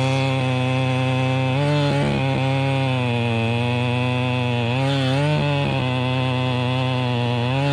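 Chainsaw engine running at high speed under load, a steady buzz whose pitch sags briefly about two seconds in, again around five seconds and near the end as the saw bogs in the cut.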